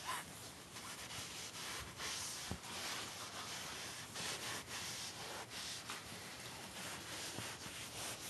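Blanket fabric rustling and rubbing right against the microphone in uneven swishes, with a few faint handling knocks.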